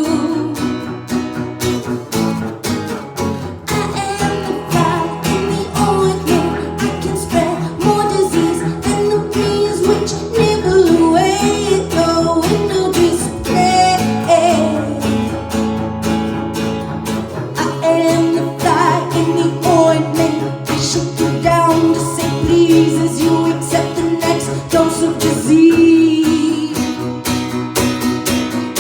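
Live music: a guitar played while a voice sings over it, with a change in the low notes about two-thirds of the way through.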